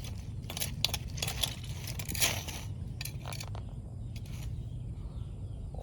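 Hard clicks and scrapes of African land snail shells knocking together as they are picked up and handled, about half a dozen sharp clicks, the loudest about two seconds in, over a low steady rumble.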